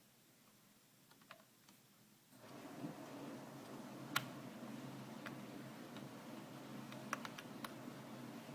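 Small sharp clicks and taps of a laptop RAM module being handled and fitted into its memory slot: a few faint ticks, then a sharper click about four seconds in and a quick cluster of clicks around seven seconds. A steady background hiss comes up about two and a half seconds in.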